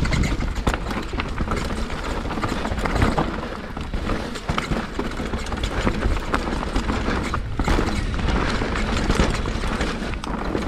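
Scott Gambler downhill mountain bike rattling over roots and rocks on a dirt trail, with a constant run of small knocks and clicks from the tyres, chain and frame. A steady low wind rumble sits on the camera's microphone under the rattle.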